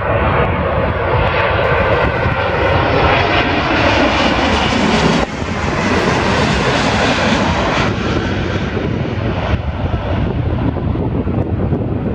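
Jet engines of a Boeing 777-200ER on final approach passing low overhead: a loud jet roar that builds to a peak about five seconds in, drops in pitch as the airliner passes, then fades as it moves away.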